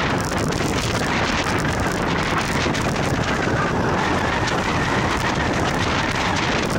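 Steady wind noise buffeting the microphone of a camera moving along a road: a loud, even rush with no breaks.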